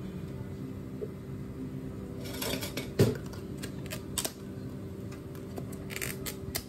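Clear plastic dome lids pressed and snapped onto plastic drink cups: crinkling plastic and sharp clicks, loudest about three seconds in, with more near the end, over a steady low hum.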